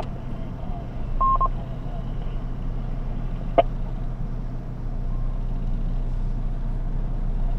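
Steady low hum of an idling vehicle, with a short electronic beep from the amateur radio about a second in and a single sharp click about halfway through.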